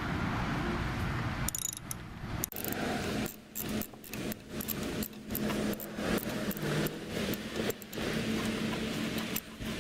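Ratchet socket wrench clicking and metal clinking in short irregular bursts as a spark plug is loosened and removed from a lawn mower engine.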